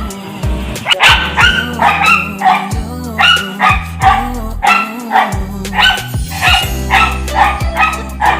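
Dog barking rapidly and excitedly, high-pitched barks about two a second starting about a second in, greeting arriving visitors. Background music with a steady bass runs underneath.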